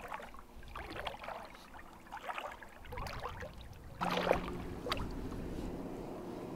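Small splashes and water sloshing in shallow water as a landing net is moved through it. About four seconds in, the sound changes suddenly to a steady hiss with a low hum.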